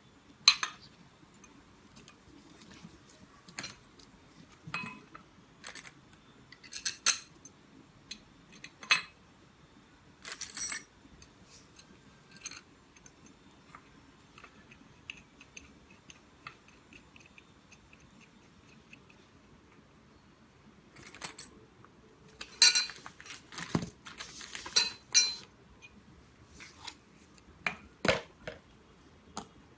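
Scattered metal clicks and clinks of a small wrench and screws as the legs are fastened onto an injection pump's metal body, coming in irregular ones and twos, with a busier flurry of clinks near the end.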